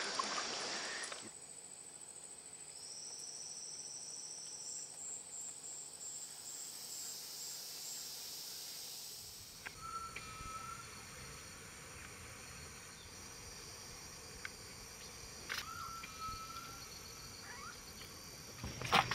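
Rainforest night ambience of insects and crickets: steady high-pitched trilling, with a buzzing call and then a pulsed call in the first few seconds. About nine seconds in the ambience changes to a wider, rushing background with two short whistled calls some six seconds apart.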